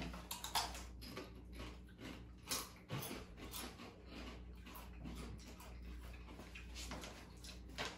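Chewing crunchy Doritos tortilla chips: irregular crisp crunches, some sharper than others.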